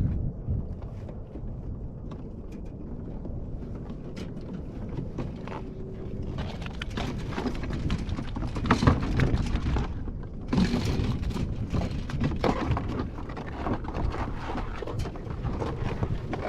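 Wind rumbling on the microphone on open water, joined about six seconds in by louder splashing and clattering.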